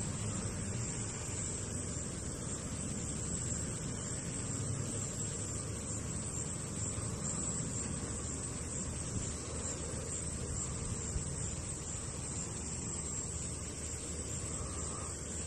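Insects trilling in a steady, unbroken high-pitched chorus over a low rumble.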